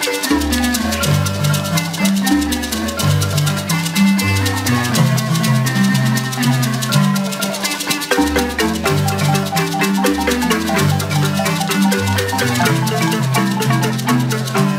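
Marimba ensemble playing music: many quick struck wooden-bar notes over a low, stepping bass line, with a steady shaker-like ticking on top.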